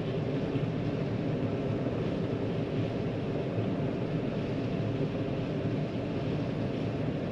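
John Deere 9500 combine running steadily with its threshing mechanism and corn header engaged, shelling corn.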